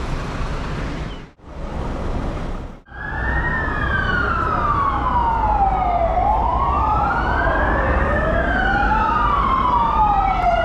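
Police car sirens wailing, two of them sweeping slowly up and down in pitch out of step with each other, starting about three seconds in over steady street traffic noise. Before they start, traffic noise is broken twice by brief dropouts.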